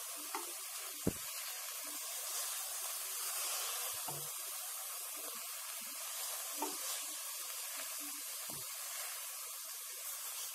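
Spatula stirring cooked dill leaves and mung dal in a steel pan, over a steady sizzling hiss, with a few light knocks of the spatula against the pan.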